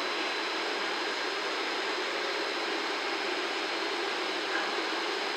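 Steady, even rushing hiss from an EF65 electric locomotive standing at the platform, with no clanks, horn or whistle.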